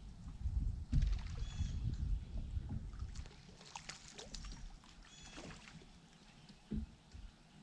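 Small fishing boat on the water: wind rumbling on the microphone with light clicks and handling knocks, and a single dull thump near the end. A bird calls twice in the background.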